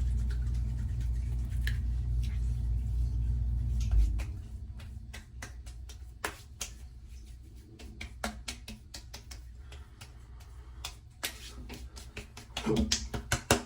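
A steady low hum that cuts off with a click about four seconds in, followed by scattered small clicks and taps of handling a bottle of Thayers cucumber witch hazel toner and applying it by hand.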